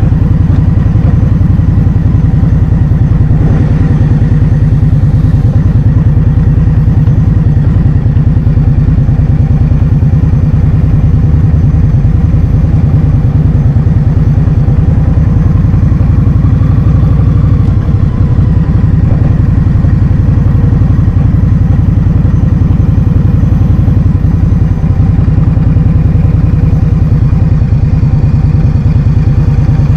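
Heavy wind buffeting on the microphone while riding a scooter, a loud steady low rumble throughout, with a faint steady hum of the scooter's engine beneath it.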